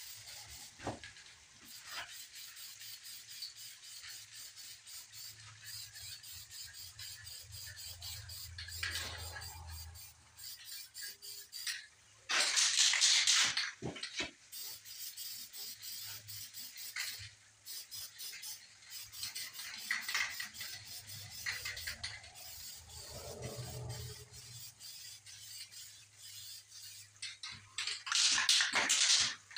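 Aerosol spray can being shaken, its mixing ball rattling in quick clicks, with two hissing bursts of spray of about a second and a half each, about twelve seconds in and near the end.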